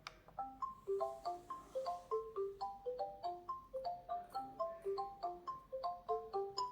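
Alarm clock lamp's alarm tune playing: a quick melody of short, chime-like notes, about four a second, starting suddenly.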